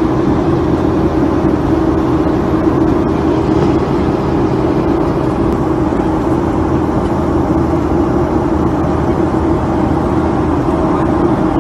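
Steady cabin noise of a Boeing 737 in flight: the drone of its jet engines and the rush of air past the fuselage, with a constant hum underneath.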